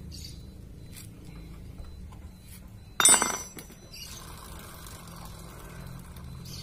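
Metal clinks from a motorcycle drive chain and a chain-breaker tool being handled: a few light clicks, then one sharp, loud metallic clink with a brief ring about three seconds in.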